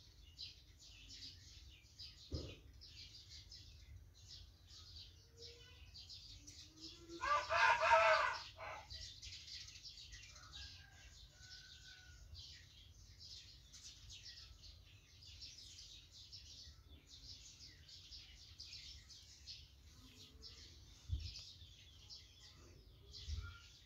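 Dry red beans scraping and rattling in a large metal wok as a metal spatula stirs them, in repeated strokes. A rooster crows loudly about seven seconds in, the loudest sound, and there are a couple of low knocks.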